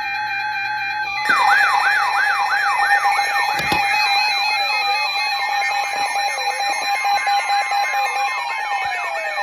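Layered electronic emergency-alert alarm tones: a steady alarm tone, joined about a second in by a rapidly repeating siren sweep and slower falling siren wails over it. There is a single sharp click a few seconds in.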